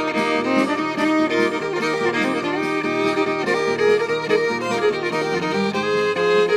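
Instrumental break in a country-folk song: a fiddle plays the melody over a steady rhythm accompaniment, with no singing.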